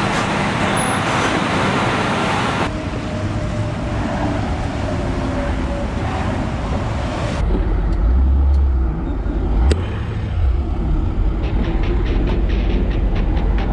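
Highway traffic noise as trucks and cars pass. About halfway through it gives way to the heavy low rumble of wind and road noise inside a car driving in slow highway traffic.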